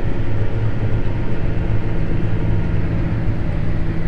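Tractor engine running at a steady, unchanging drone.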